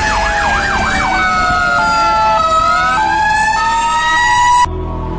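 Fire engine sirens on a responding fire truck: a fast yelp warbling up and down until about a second in, then a two-tone high-low pattern over a slower wail that falls and rises again. The sirens cut off suddenly near the end.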